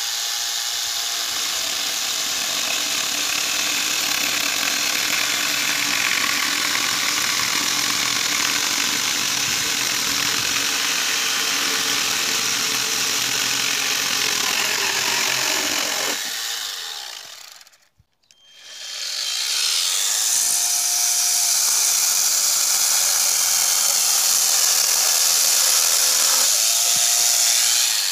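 Cordless angle grinder driving a homemade chainsaw attachment, its chain sawing through dry wood. About two-thirds of the way in the motor winds down to a stop, then spins back up and cuts on.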